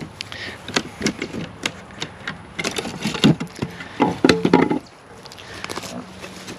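Hook-and-eye latch unhooked and a small wooden crawlspace access door pulled open: a run of wooden knocks, clicks and rattles, which die down about five seconds in.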